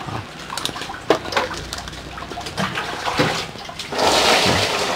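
Scattered light knocks and clicks, then about four seconds in a loud rush of water lasting about a second.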